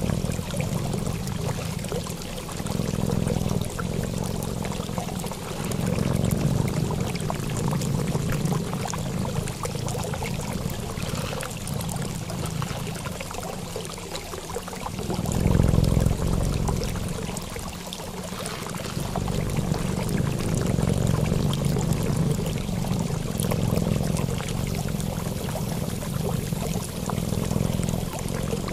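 Steady sound of rushing, pouring water, like a flowing stream, swelling and easing every few seconds.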